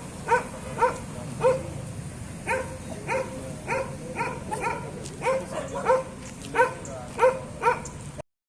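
A dog barking over and over, roughly one to two short barks a second with a brief pause about two seconds in, cut off abruptly near the end.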